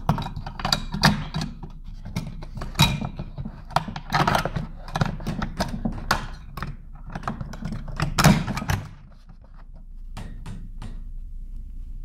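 Plastic outlet extension box being pressed and fitted onto its base over a wall receptacle: a run of sharp plastic clicks and knocks, the loudest about eight seconds in, stopping about nine seconds in.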